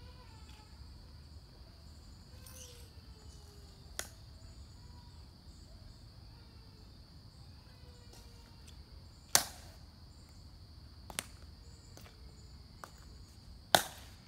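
Four sharp, isolated heel clicks from a Tomb Guard's metal-tapped shoes on the stone plaza, spaced a few seconds apart, the loudest two about two-thirds of the way through and near the end. Under them, insects drone steadily at a high pitch.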